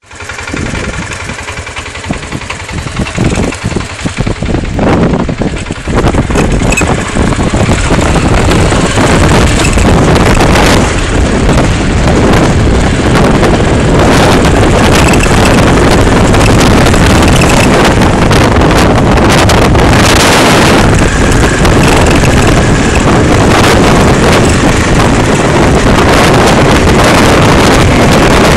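Motorcycle riding on a dirt road, the sound dominated by loud wind rushing over the microphone, with the bike's running noise underneath. It grows louder over the first several seconds, then stays steady.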